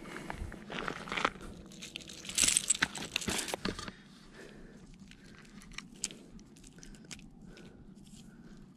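Gravel crunching and scraping with rustling and clicks as the angler shifts about on a gravel bank handling a freshly landed striped bass. The noise is loudest for about a second and a half midway through the first half, then dies to faint scattered clicks after about four seconds.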